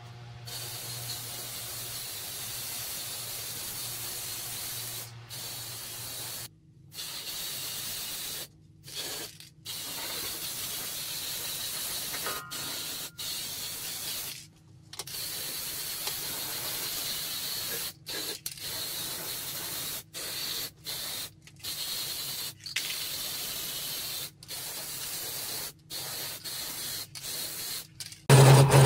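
Aerosol spray-paint can hissing in repeated bursts of varying length, with short pauses between them, as black paint goes onto the steel press frame. A louder motor hum cuts in right at the end.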